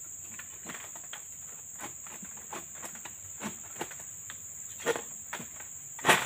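Insects shrilling steadily in one high band, over a scatter of short cracks and rustles from a long-pole harvesting sickle (egrek) working among oil palm fronds, the loudest crack just before the end.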